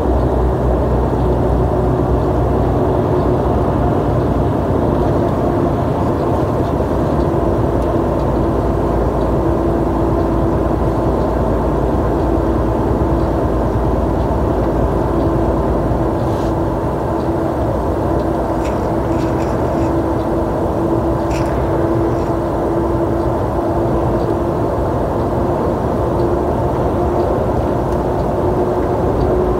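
Steady drone of a heavy truck on the move, heard from inside the cab: engine and road noise with a constant hum.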